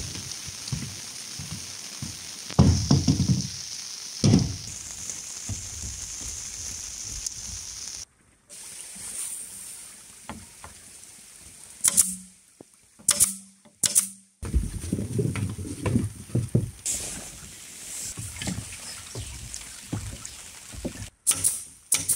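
Rain falling steadily, with a few heavy knocks as long bamboo poles are handled. About halfway through, three short bursts of a cordless drill working on a bamboo post, followed by more knocking and handling and a few more short drill bursts near the end.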